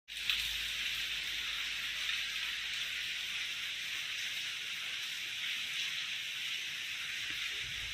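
Heavy rain falling steadily, an even, constant hiss.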